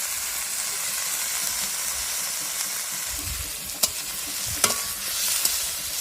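Food frying with a steady sizzle in a hot pan as it is stirred, with a few sharp clicks of the utensil against the pan in the second half.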